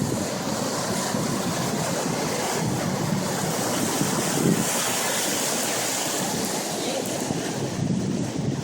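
Steady rushing of a flooded creek's fast, high water, with wind gusting on the microphone now and then.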